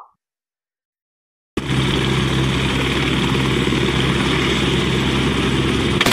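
Light helicopter running on the ground with its rotor turning: a steady engine and rotor sound that starts suddenly about a second and a half in.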